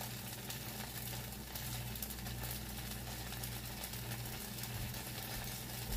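Bánh xèo, a rice-flour batter pancake topped with shrimp and squid, sizzling steadily in oil in a hot skillet, over a steady low hum.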